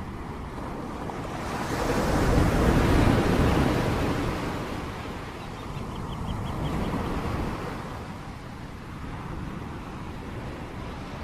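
Steady rain noise, with a deep rumble that swells about two seconds in and fades a few seconds later, and a smaller swell around seven seconds.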